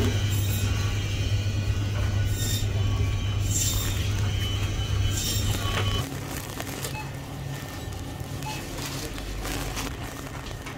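Shop ambience: a steady low hum with faint voices and music in the background, and a few brief rustles. About six seconds in, the hum changes abruptly and the sound becomes quieter.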